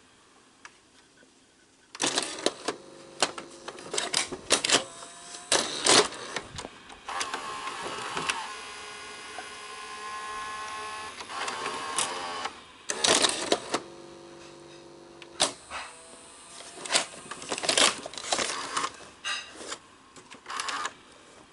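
Sony SLV-R5UC S-VHS VCR's tape-loading mechanism working: the loading motor whirs in spells while the gears and cam click and clack, starting about two seconds in. The loading cycle does not complete, which the owner puts down to gears out of time.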